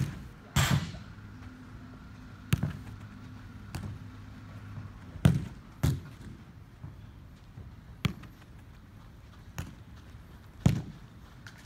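Soccer ball being struck with the inside of the foot on artificial turf: about eight sharp thuds of passes and shots, spaced irregularly one to two seconds apart.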